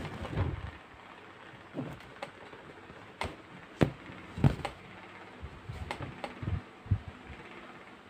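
Irregular light taps, clicks and a few soft thumps from hands stitching scrap yarn into calico stretched on a canvas board, with faint rustling of the yarn.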